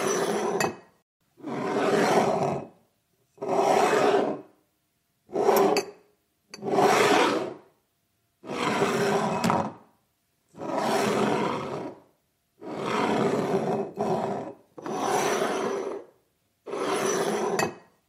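A glass slid back and forth across a wooden table top, giving a run of grinding scrapes about a second long each, one every two seconds or so with silence between.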